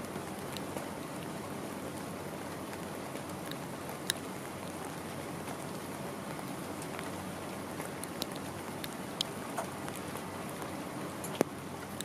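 Steady rain falling, with scattered sharp drips of water striking a nearby surface every second or two.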